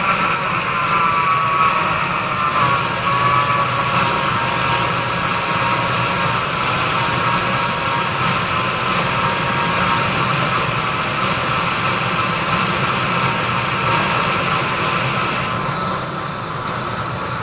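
Ford Expedition's engine idling steadily, with a high steady whine running over the engine sound.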